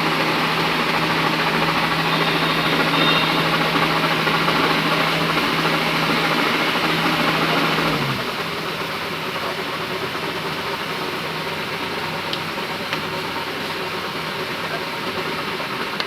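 Rice combine harvester's engine running steadily at speed, then dropping to a quieter idle about halfway through.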